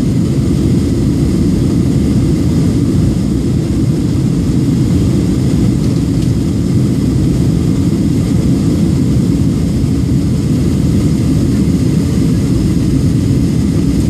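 Steady cabin noise of a jet airliner in flight: the engines and rushing airflow make a deep, even drone, heard from inside the cabin.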